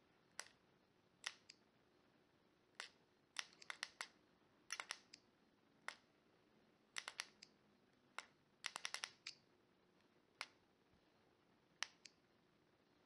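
Sharp plastic clicks from a Character Options 13th Doctor toy sonic screwdriver being worked by hand. They come irregularly, some single and some in quick runs of four or five.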